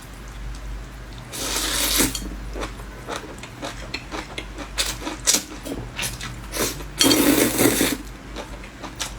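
Close-miked mukbang eating sounds: two loud noodle slurps, about a second and a half in and again near seven seconds, with many short wet clicks and smacks of chewing between.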